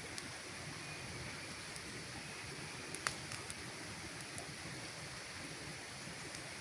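Campfire burning: a steady hiss with scattered sharp crackles and pops, the loudest about three seconds in.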